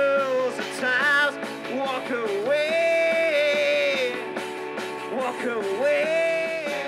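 Live rock band playing: a singer holds long drawn-out notes with vibrato, three of them, over electric guitar, bass guitar and drums.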